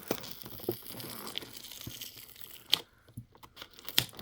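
A toy box's packaging being torn open by hand, with steady tearing and crinkling followed by two sharp clicks near the end.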